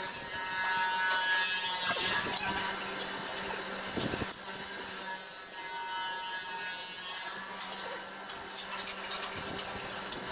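Hand tools fastening bolts on a steel thresher frame: scattered metallic clicks and scraping, over a steady faint hum.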